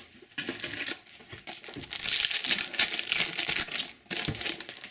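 Foil wrapper of a Panini Adrenalyn XL trading-card booster pack being crinkled and torn open by hand. The crackling is loudest in the middle.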